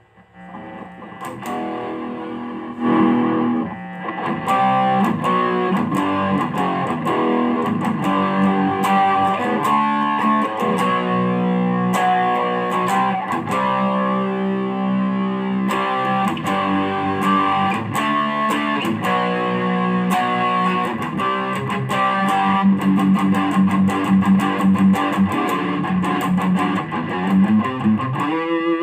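Mexican-made Fender electric guitar being played: it fades in over the first few seconds, then a continuous run of picked notes and chords follows, with a bent note near the end.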